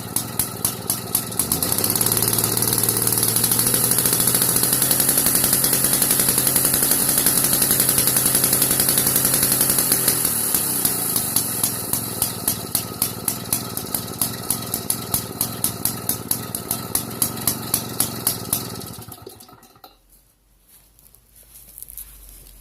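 Engine of an AKCO 306 two-man chainsaw idling with an even pulse, then revving up about a second and a half in and running at high speed for several seconds. It settles back to idle and then cuts out near the end.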